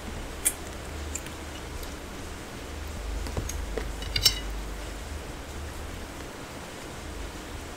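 Close-miked eating: two people chewing, with a few sharp clicks, the loudest a quick cluster about four seconds in, over a steady low hum.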